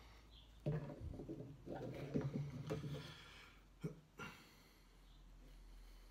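Chicken wire being handled while its wire ends are fastened around a sculpture's foot: light clicks and rattles, with two sharper clicks about four seconds in.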